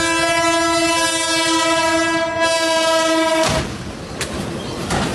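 Train horn sounding one long, steady chord of several notes, cutting off abruptly about three and a half seconds in; after it, a rushing rumble with two sharp clicks.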